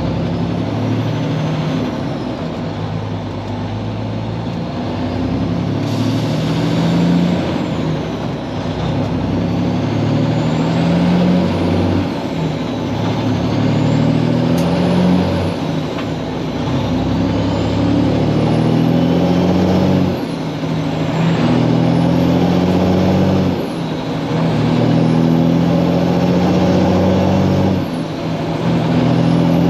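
Kenworth W900 semi truck's Cummins X15 diesel engine pulling through the gears: its pitch climbs in each gear and drops back at each of several upshifts.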